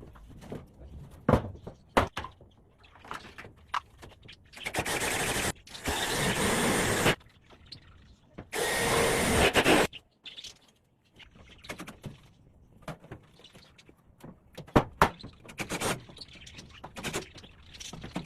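A power drill run in three bursts of about a second each, between scattered knocks and taps, as in work on a wooden cage.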